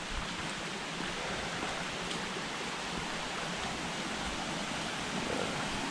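Small mountain creek running over rocks, a steady rushing of water.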